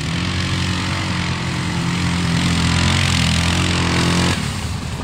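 ATV engine pulling under steady throttle as the quad climbs a snowy slope, with a hiss that swells as it nears. The engine note drops off abruptly about four seconds in.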